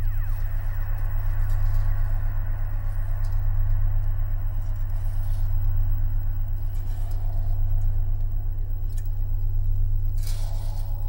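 Dark ambient electronic drone: a deep, steady low hum that swells and ebbs about every two seconds under a shimmering mid-range texture. The texture opens with a falling sweep, and a rush of hiss rises near the end.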